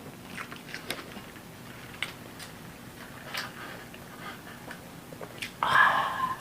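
Close-up eating sounds: scattered small clicks and smacks of chewing, with a louder brief mouth sound near the end.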